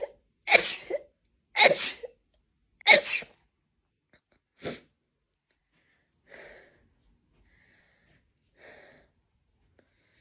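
A person sneezing in a fit: three loud sneezes in quick succession, about a second apart, then a smaller one a little later, followed by a couple of faint short sounds.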